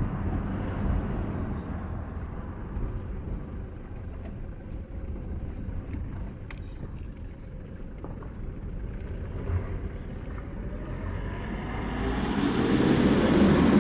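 Toyota Hilux 2KD four-cylinder turbodiesel on the move, engine and road noise easing off and then building again near the end as it accelerates. No whistle is heard, with the catalytic-converter joint freshly resealed.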